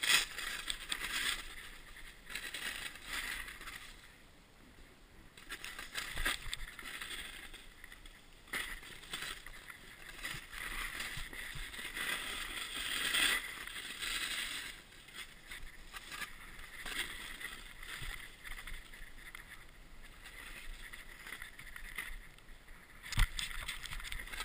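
Snowboard sliding and turning through powder snow: a swishing hiss that swells and fades with the turns, broken by a few thumps.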